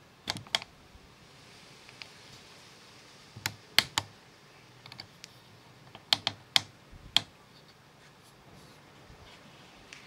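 A series of sharp, short clicks coming two or three at a time, in four clusters a few seconds apart.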